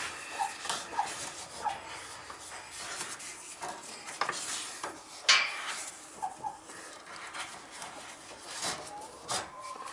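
Chickens clucking softly now and then over the rubbing and clatter of a rope being handled and pulled, with a sharp scrape about five seconds in.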